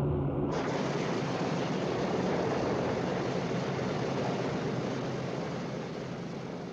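Propeller aircraft noise: a steady engine drone for the first half second, then a sudden change to a loud, even rushing noise of engines and airflow that slowly fades near the end.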